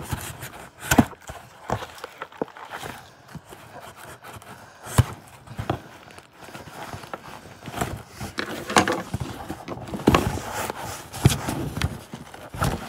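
Cardboard box packaging being handled and pulled open: irregular knocks, scrapes and rustles.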